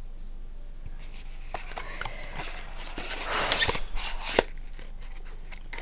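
A small cosmetic bottle and its cardboard box being handled and put away: scattered clicks and crinkly rustling of packaging, busiest in the second half with a sharp click near the end.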